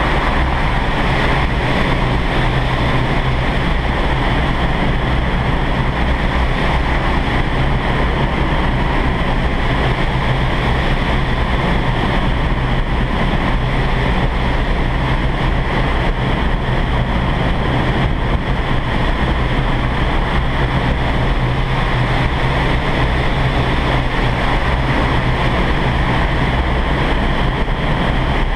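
Vertical wind tunnel running at flying speed: a loud, unbroken rush of air through the flight chamber, buffeting the microphone, with a steady low hum underneath.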